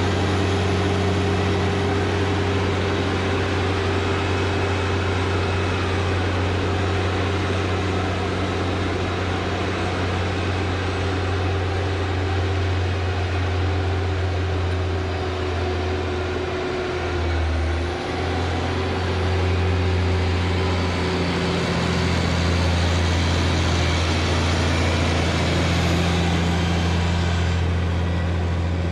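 Tractor engine running steadily under load, a loud, low drone that sags briefly about two-thirds of the way through before picking up again.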